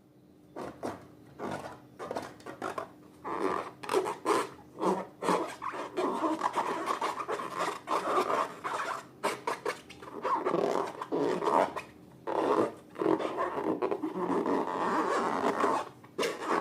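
Slime being worked by hand: a continuous run of short rubbing and scraping strokes with sharp sticky clicks.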